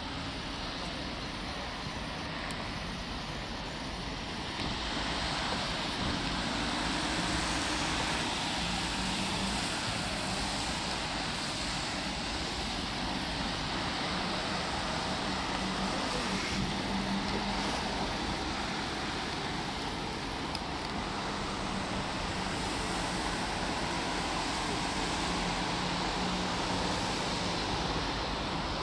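Steady hiss of traffic on a wet road mixed with wind, getting louder about four seconds in, with a faint low engine hum that comes and goes.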